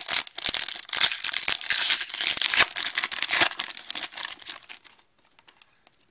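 Foil wrapper of an Upper Deck hockey card pack being torn open and crinkled by hand, a dense crackling that stops about five seconds in.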